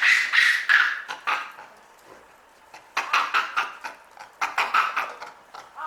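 Japanese macaques screaming: three loud bouts of rapid, harsh calls with short quiet gaps between them.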